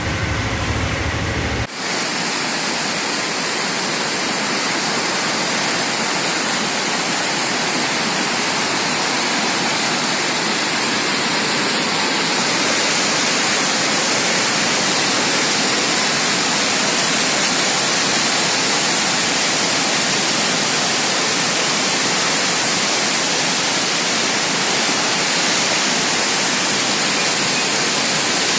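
Swollen, muddy floodwater torrent rushing and churning: a steady, loud rush of water. For the first couple of seconds a vehicle's engine hum is heard instead, cut off abruptly when the water sound begins.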